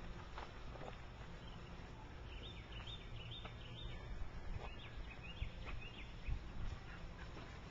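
Birds chirping in a quick run of short, falling calls over a steady low background rumble.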